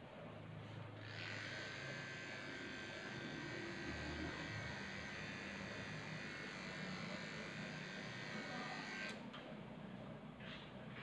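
Electric dog grooming clippers running steadily, starting about a second in and stopping about nine seconds in.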